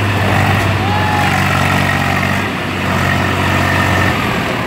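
Swaraj 735 XT tractor's three-cylinder diesel engine running steadily under heavy load as it hauls a full trolley of soil uphill with its front wheels lifted off the ground. The engine note changes about four seconds in.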